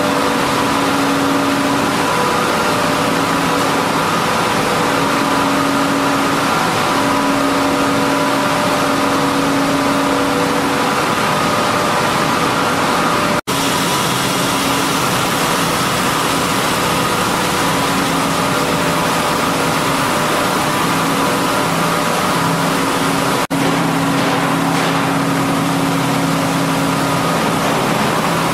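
Millet milling plant machinery running: a loud, steady mechanical drone with several steady hum tones over it. It drops out for an instant twice, about halfway through and again near the end.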